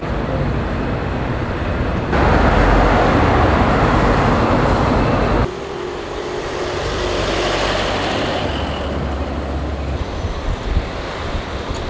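Road traffic noise from vehicles driving on a city street, made of several clips cut together; the loudest stretch is a steady rush of passing traffic from about two seconds in to about five and a half.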